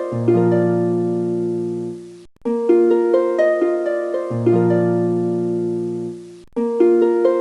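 Background music: a short looping phrase of plucked, harp-like notes that settles into a held chord. It breaks off briefly twice and restarts.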